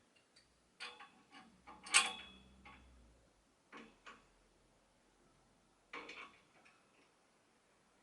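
Open-ended spanners working the nuts of a homemade threaded-bar headset press, with scattered metal clicks and clinks as the bottom headset cup is drawn into the head tube. The loudest clink comes about two seconds in, with a few more around four and six seconds.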